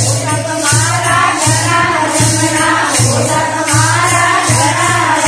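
Group of women singing a Marwari devotional bhajan in unison, accompanied by wooden kartal clappers jingling in a steady beat over a pulsing low beat.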